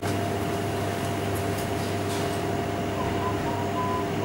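Steady mechanical hum of refrigerated display cases with a few steady tones over a low drone, and a few faint short high tones about three seconds in.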